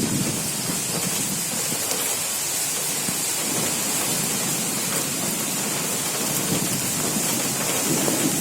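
Heavy rain pouring steadily, with gusts of wind rumbling on the microphone, strongest at the start and again near the end.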